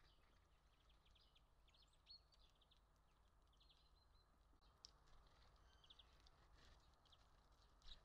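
Faint, scattered chirps and short twitters of small songbirds, over a low steady hum.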